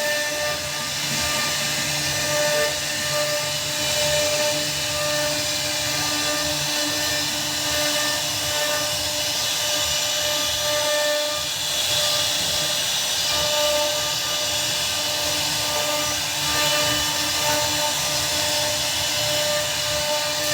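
CNC router spindle carving a design into a wooden door panel: a steady high-speed whine over a hiss of cutting, its tones fading in and out as the bit moves through the wood.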